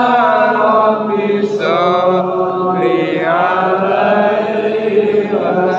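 Islamic devotional chanting: a male voice holding long, sliding notes in a continuous melodic line.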